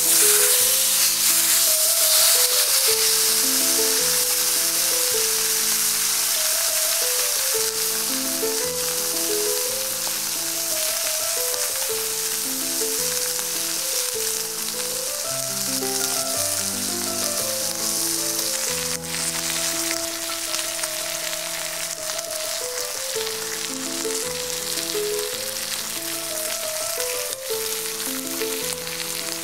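Thick porterhouse steak searing in a hot cast iron skillet: a steady, dense sizzle of fat and juices, loudest in the first few seconds just after the steak is turned, then easing off gradually. Soft background music plays underneath.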